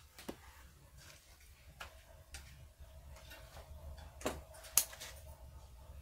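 Hand pruning shears snipping branches off a bonsai: a handful of short, sharp clicks at irregular intervals, the loudest a little before the end.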